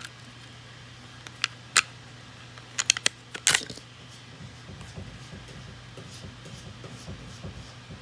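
Glock 19 Gen5 pistol fitted with a Glock Performance Trigger being handled: a few sharp metallic clicks, then a short rattle about three and a half seconds in, as the trigger is dry-fired and the action worked.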